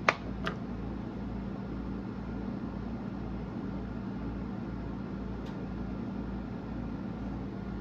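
Steady mechanical room hum with a low drone and light hiss, like a fan or air conditioner running. A sharp click comes right at the start, then a smaller one about half a second later, from small handling of the lure and its stick-on eyes.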